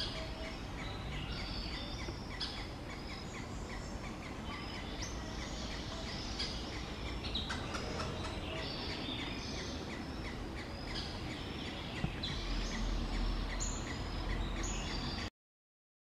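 Wild birds chirping and calling in a forest: many short, high chirps overlap over steady background noise. A low rumble rises near the end, then the sound cuts off suddenly.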